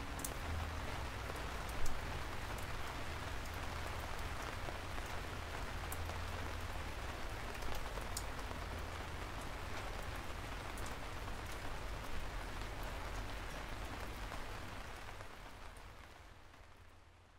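A steady rain-like hiss sprinkled with short light ticks over a low hum, fading out over the last few seconds.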